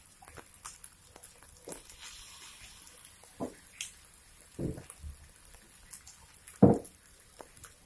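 Rice frying with a faint crackle in a wok, broken by scattered clicks and a few knocks of kitchen utensils. One knock about two-thirds of the way through is much louder than the rest.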